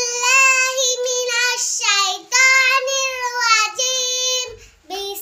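A young girl singing unaccompanied in a high voice, holding long notes in phrases, with short breath pauses about two seconds in and near the end.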